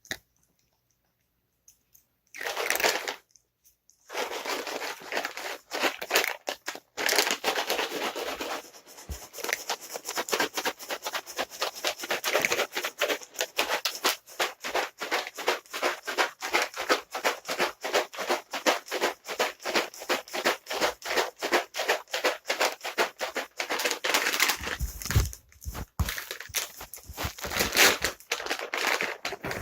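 A package of dry cat treats being shaken rapidly, the kibble rattling and the packaging crinkling. A brief shake comes about two seconds in, then continuous shaking from about four seconds almost to the end, with one short break near the end.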